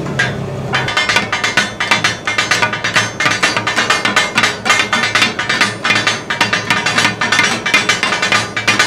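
Taka-tak cooking: a brief sizzle as water hits the hot iron griddle, then from about a second in, a fast, steady clatter of two flat steel blades striking and chopping goat offal on the griddle, several strikes a second.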